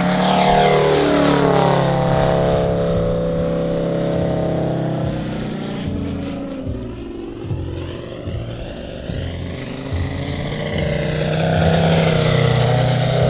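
Five-cylinder Valach VM-250 R5 radial engine of a half-scale RC Bücker Jungmeister biplane in flight. The engine note drops in pitch as the plane sweeps past low in the first few seconds, changes through the manoeuvres overhead, then rises and grows loud again as it comes back in for another low pass near the end.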